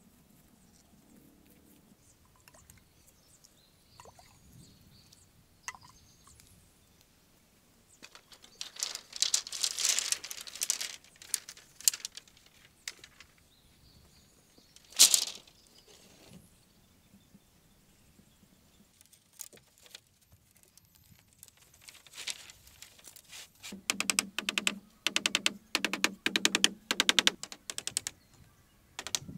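Bamboo poles clacking and knocking: a cluster of sharp clacks, then one loud knock, then near the end a quick run of hollow, ringing taps on bamboo.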